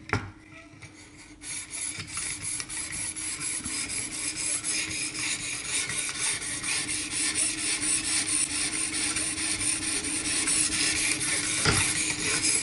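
Sharpening stone on a guided knife sharpener scraping along a steel knife edge in quick, steady back-and-forth strokes. The strokes begin about a second and a half in and slowly grow louder.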